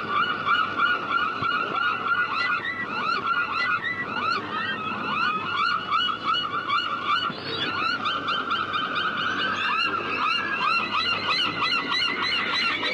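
A flock of seagulls calling: a dense chorus of short, overlapping squawks, several a second, with no pause.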